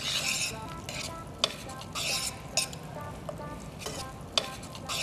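A metal spoon stirs a cooking tomato, bean and basil sauce in a stainless steel sauté pan. The stirring gives a scraping, gentle sizzle, with a few sharp clinks of the spoon against the pan.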